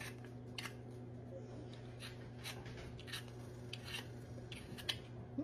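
Vegetable peeler scraping the skin off a raw potato in short, faint strokes, about two a second, over a steady low hum.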